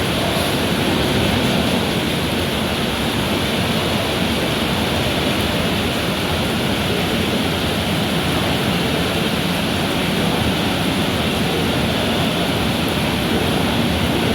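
Mumbai suburban electric local train running, a steady loud rush of wheel and wind noise mixed with rain.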